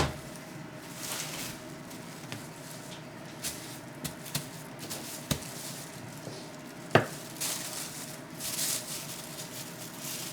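Hands working pancake dough and paper on a counter: rustling of paper and a few light taps and knocks, the sharpest about seven seconds in, over a faint steady hum.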